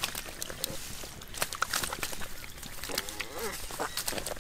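Fish slapping and splashing in a shallow pool of mud and water, with irregular sharp slaps and wet squelches as hands grab them out of the mud.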